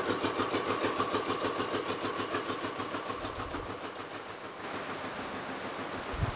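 A rapier weaving loom running at full speed, beating the weft in with a fast, even rhythm of about seven or eight picks a second. About four and a half seconds in it gives way to a steady hiss of mill noise, with one low thump near the end.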